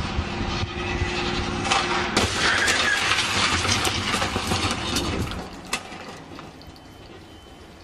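A test car runs along a crash-test track and slams into a steel barrier block about two seconds in. The loud crash is followed by about three seconds of debris, bodywork fragments and glass, clattering and tinkling across the concrete, then fading away.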